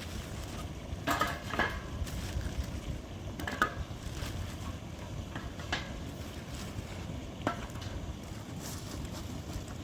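Kitchen utensils clinking against pots or dishes, about five sharp clinks with a short ring, over a steady low rumble.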